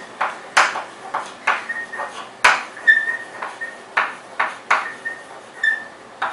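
Chalk writing on a blackboard: a quick run of scratching, tapping strokes, about two or three a second, with a few short squeaks of the chalk.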